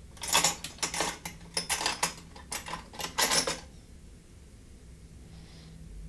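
Clinking and rattling of small hard objects, such as tools, being handled on a workbench for about three seconds, then it stops, leaving a faint hum.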